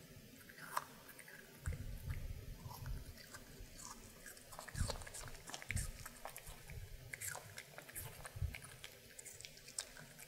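A Maltese dog biting and chewing a piece of apple: irregular crisp crunches with a few heavier bites.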